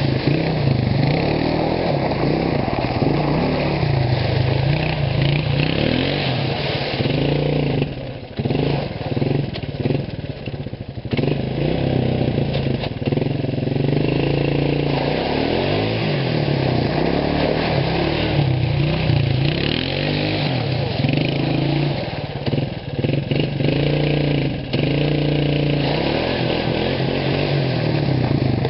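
Small single-cylinder-style ATV engine revving up and down repeatedly as the quad is ridden around, over a steady low engine hum. The sound dips briefly a few times, around a third of the way in and again past the middle.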